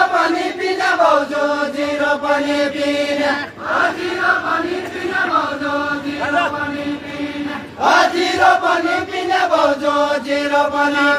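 Voices singing a Deuda folk song together, a chant in three long drawn-out phrases of about four seconds each.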